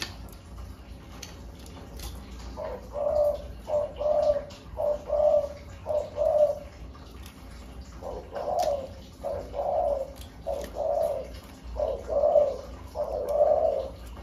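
Caged spotted dove cooing in two phrases of about five low coos each, the first starting about three seconds in and the second around eight seconds in.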